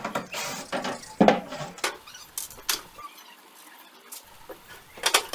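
Short squeaks, scrapes and clicks of tools and wood being handled, packed into the first two seconds, then a few scattered sharp clicks; no saw is running.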